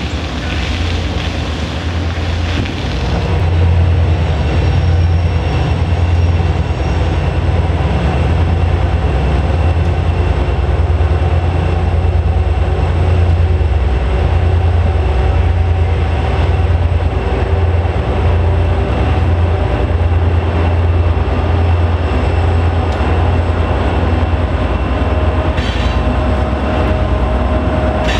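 Diesel-electric freight locomotives, a pair of EMD GP39-2s, working a train with a deep, steady engine rumble. It grows louder over the first few seconds and then holds steady.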